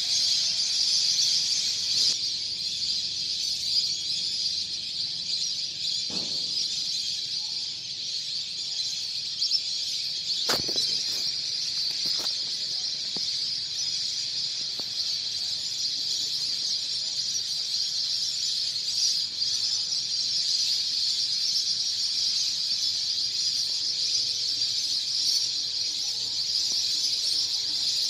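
A large flock of birds calling overhead: a dense, steady chorus of high calls that never lets up.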